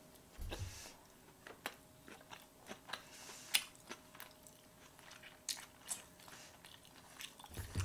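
A person chewing a mouthful of salmon sushi: quiet, scattered wet mouth clicks and smacks.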